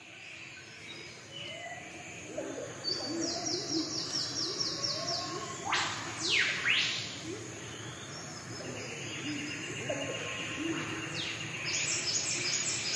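Several birds calling and chirping together, fading in at the start: a run of about ten quick high notes, then two loud sweeping calls about halfway through, over lower chirps.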